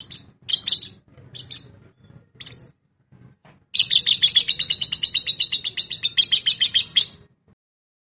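Fischer's lovebirds calling: a few separate high chirps over the first three seconds, then a rapid run of high chirps, about ten a second, lasting some three seconds.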